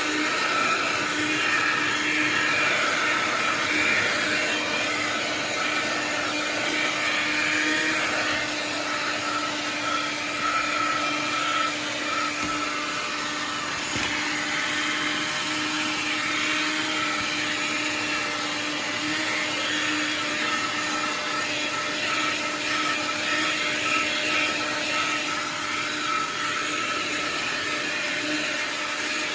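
AIRLINE car vacuum cleaner running steadily: its motor hums at a constant pitch under a steady hiss of air.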